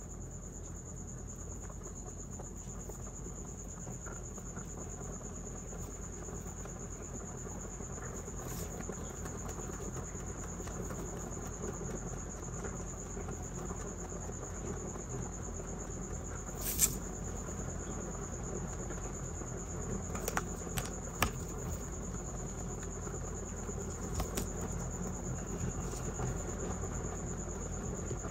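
Rabbits chewing hay and fresh green stems close to the microphone: rapid, continuous crunching and nibbling, with a few sharper snaps, the loudest about two-thirds of the way in and a small cluster a few seconds later.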